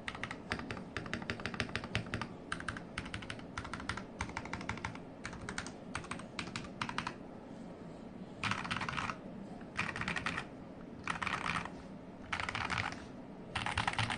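Typing on a modded Royal Kludge RK100 mechanical keyboard: about seven seconds of steady, quick keystroke clacks, then five short bursts of rapid keystrokes with pauses between them.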